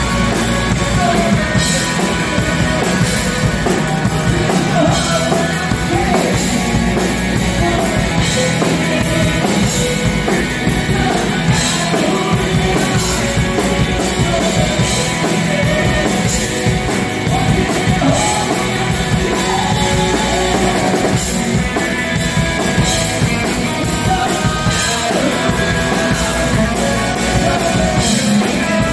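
Live rock band playing loud and steady: electric guitars, bass guitar and a drum kit with cymbal crashes, with a singing voice in the mix.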